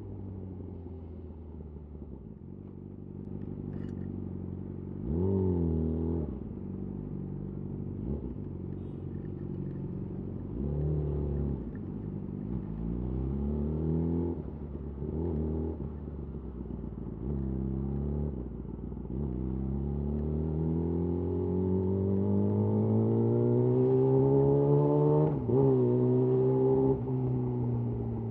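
Yamaha YZF R6 inline-four running through a de-catted Akrapovic slip-on exhaust at low revs, with several short throttle blips. In the second half the revs climb steadily for several seconds, dip sharply and briefly, then pick up again.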